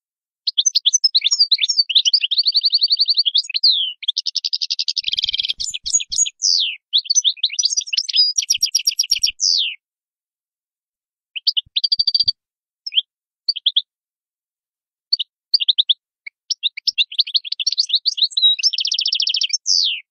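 European goldfinch singing: rapid twittering phrases of quick varied notes, fast trills and buzzy rattles, broken by two pauses before the song picks up again.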